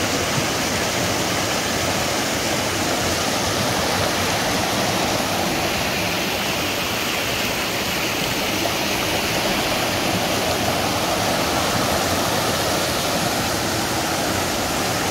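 Small rocky brook rushing over stones and low cascades: a steady, even rush of water.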